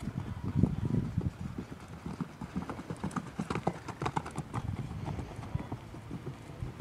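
Buckskin gelding's hooves beating on a dirt arena floor as he is ridden at a brisk gait, a quick irregular run of muffled thuds, loudest in the first second and then fainter.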